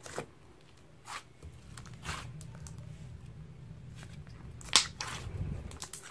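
Slime being squeezed and stretched by hand, giving irregular sticky pops and crackles, the sharpest pop about three-quarters of the way through.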